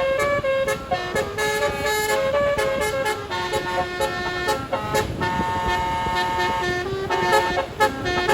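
Bus telolet basuri multi-tone musical horn playing a tune: held notes that step up and down in pitch, with one longer note about halfway through, over steady background noise.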